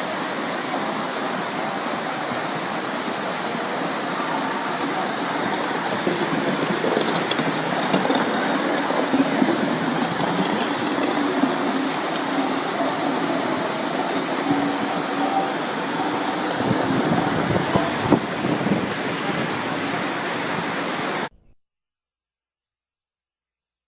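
Rushing floodwater, a loud steady noise with some louder uneven patches in the middle, cutting off abruptly near the end.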